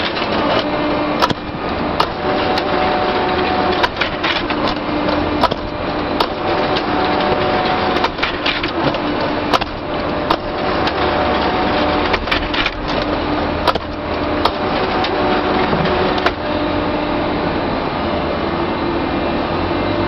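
IPS baler running: a steady machine noise with a humming tone that comes and goes about every four seconds, and many sharp cracks and snaps throughout.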